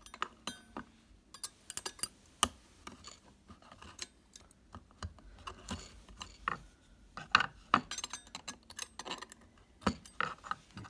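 Irregular clicks, taps and short scrapes of a knife working on small 3D-printed plastic parts, cutting and snapping off print supports.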